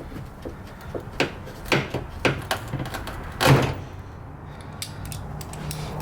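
Several light clicks and knocks, then a louder scraping knock about three and a half seconds in, from hood pin hardware being handled and fitted into the hood.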